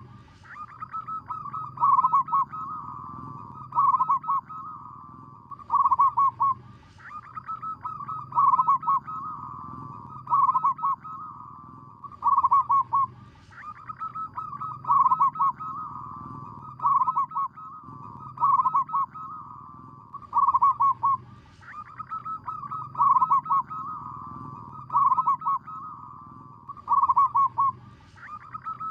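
Zebra dove cooing: bursts of rapid, rolling coos repeated about every two seconds, the song running continuously over a faint low hum.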